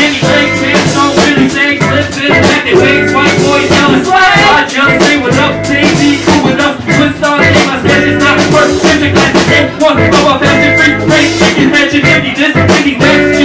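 Live jazz-funk band playing loud: a drum kit keeping a steady beat under electric guitar and bass, with a woman singing over it.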